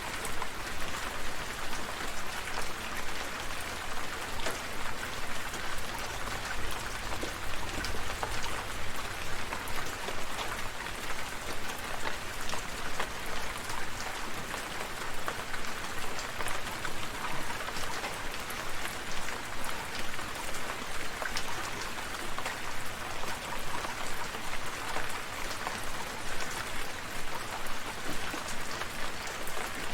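Steady rainfall, a dense hiss of drops with many small individual drop ticks.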